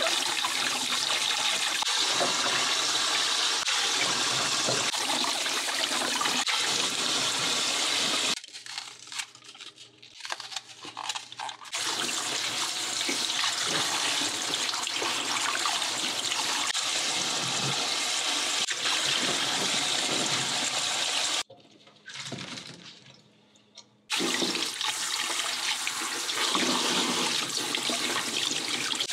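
Kitchen tap running in a spray into a bowl of water in a stainless steel sink, with hands splashing and rubbing vegetables in the stream. The water sound drops away twice for about three seconds before running again.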